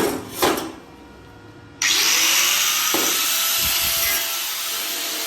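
A couple of short knocks, then about two seconds in an angle grinder starts up and cuts into the tractor silencer's metal pipe, a harsh steady hiss with a whine over it.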